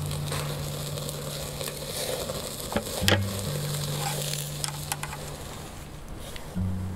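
Skewered pork chashu sizzling over glowing charcoal in a shichirin grill, with a few sharp crackles, the loudest about three seconds in. Low, held bass notes of background music run underneath.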